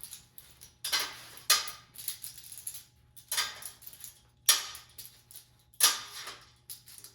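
Metal clamps clanking and clinking against one another and against cold-rolled steel rod mounts as they are hung up, with about five louder knocks that ring briefly and lighter clicks between them.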